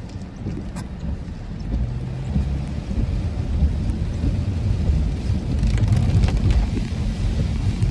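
Rain hitting a car's windshield and body as heard from inside the cabin, over a low rumble of the car driving on a wet road. It grows louder from about three seconds in.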